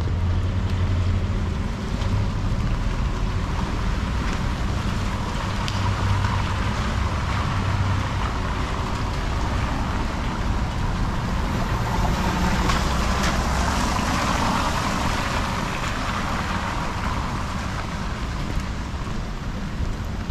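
Road traffic on a rain-wet city street with rain falling: a steady low engine rumble throughout, and a vehicle passing in the middle, its hiss swelling and fading.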